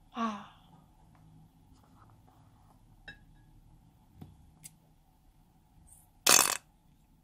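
Scissors snipping through the rubber neck of a slime-filled balloon: one sharp cut about six seconds in, the loudest sound. Before it, a brief squeak falling in pitch at the start and a few faint light ticks.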